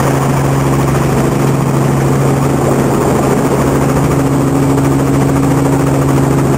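Helicopter engine and rotor running steadily, heard from inside the cabin as a loud, constant low hum over dense mechanical noise.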